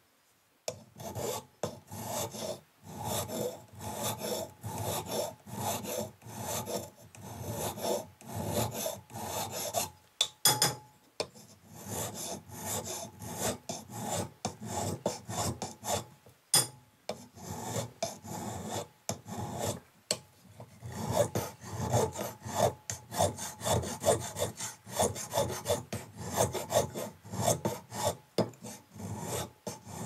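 Flat hand file rasping back and forth across the back of a lacquered wooden table fork, about two strokes a second, with a couple of short pauses. The file is bringing the bowtie-shaped wooden keys set into the fork's crack down flush with the surface.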